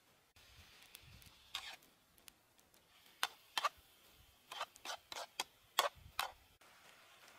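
Metal spatula scraping and knocking against a steel wok while stir-frying, about ten short strokes, most of them in the second half.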